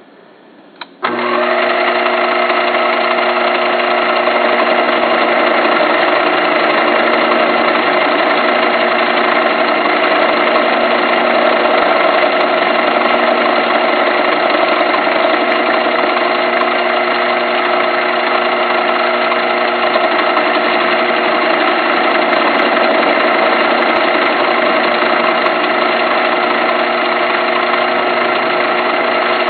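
Small metal lathe switching on with a click about a second in, then running steadily with a constant mechanical whine from its motor and gearing while it spins a deer antler blank in the chuck.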